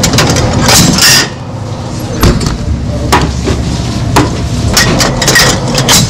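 A run of irregular knocks and clatter, as of items being handled and set down.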